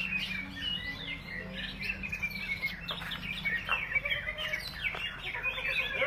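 Many caged greater green leafbirds (cucak ijo) singing at once: a dense, unbroken, overlapping stream of chirps, trills and whistles.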